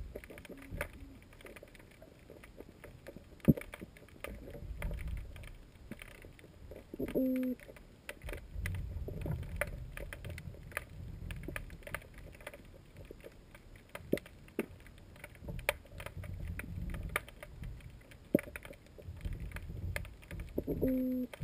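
Scattered knocks and clicks over patches of low rumbling, like gear or the camera being jostled on a boat. Twice a short two-note beep drops in pitch, once about seven seconds in and again near the end.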